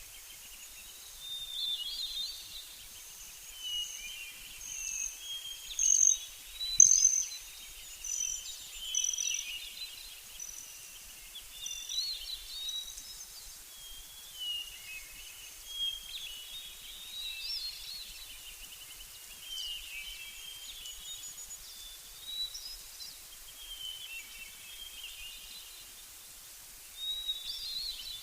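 Several songbirds singing and calling over one another: a steady stream of short high chirps, whistles and trills, loudest about six to seven seconds in.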